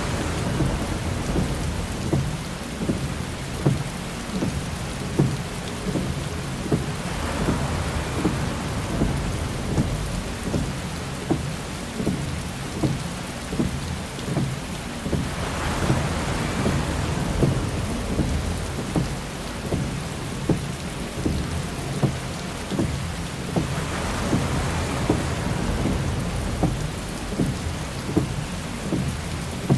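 Heavy rain pelting a car's windshield and roof: a dense steady patter with many sharp drop hits over a deep rumble. A windshield wiper sweeps with a swelling whoosh about every eight seconds, as on an intermittent setting.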